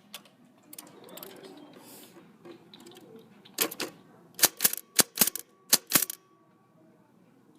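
Modern typewriter striking characters: a few light clicks at first, then a quick, uneven run of about nine sharp strikes in the middle.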